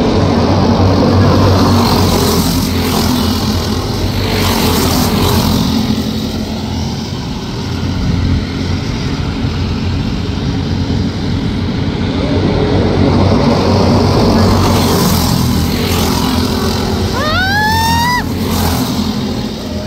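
Several dirt-track racing karts' small engines running as the pack laps the oval, swelling louder twice as karts pass nearer. A short rising tone sounds near the end.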